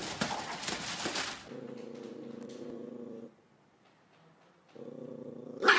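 A pet animal making a steady low sound, about two seconds long, then again after a short pause, following a burst of rustling clatter at the start.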